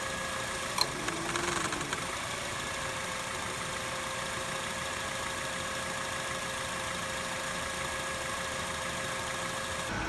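Honda Civic engine idling, a steady hum with a faint steady whine, with one brief click about a second in.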